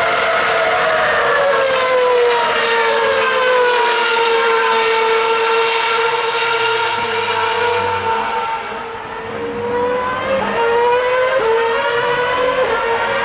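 Formula One car's high-revving 2.4-litre V8 engine, its pitch falling over the first few seconds as the car slows. The engine holds a steady note, fades briefly, then climbs again in the last few seconds as it accelerates.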